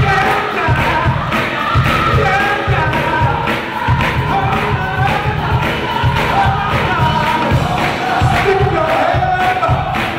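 Large gospel choir singing in full voice over a steady driving beat.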